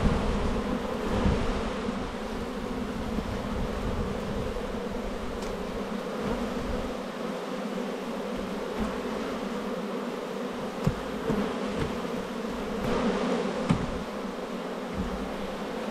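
Honeybees from an open Langstroth hive, buzzing in a steady low hum: the settled sound of a queenright colony. A few knocks sound in the second half.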